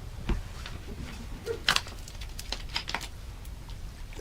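Hands handling a collapsible silicone dog bowl, making scattered light clicks and taps, with a sharper click a little under two seconds in and a quick run of clicks near the three-second mark.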